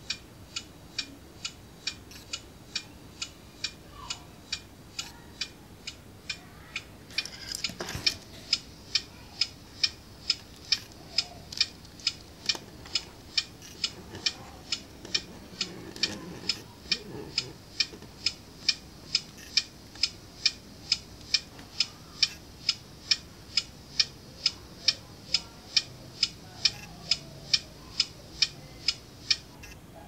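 Turn-signal indicator ticking, a steady click about twice a second that becomes louder and a little quicker about eight seconds in. A single knock comes near the change, and there is light handling noise in the middle.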